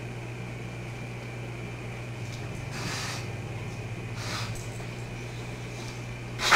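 German Shepherd sniffing and snorting in short puffs at the bottom front of a refrigerator, over a steady low hum, with a louder sharp burst right at the end.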